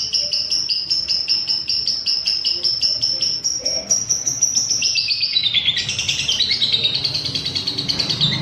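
Lovebird 'ngekek' song: a long unbroken run of rapid, shrill chattering notes, evenly spaced at several a second. About five seconds in, the run slides lower and becomes denser and more jumbled.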